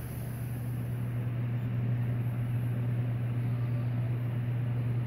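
Steady low hum with an even hiss: a large building's air-handling system running.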